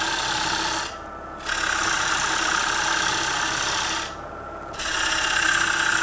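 Gouge cutting into a spinning ash bowl blank on a Coronet Herald wood lathe: a continuous scraping hiss of shavings being peeled off. It breaks off twice, about a second in and about four seconds in, each time for about half a second as the tool comes off the wood, over the lathe's steady hum.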